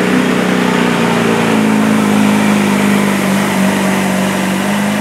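Diesel pulling pickup at full throttle, dragging a loaded pulling sled; the engine holds one loud, steady drone whose pitch dips slightly about a second and a half in.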